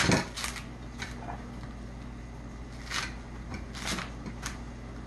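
Coconut husk being pulled and torn off by hand: a few brief fibrous rips spread through, after a sharp knock at the very start.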